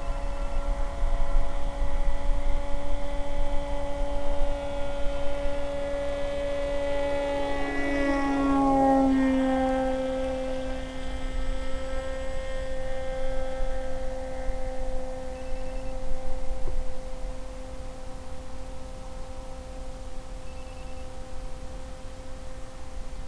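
Electric motor and propeller of a Maxi Swift FPV model plane in flight: a steady whine with several overtones, its pitch sliding down a little about eight to nine seconds in, over a low rumble.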